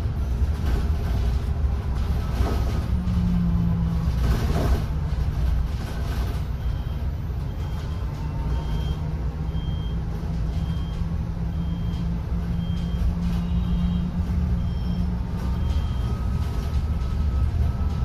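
A city bus running, heard from inside: a steady low road rumble with a constant low motor hum. From about six seconds in, a short high beep repeats roughly once a second.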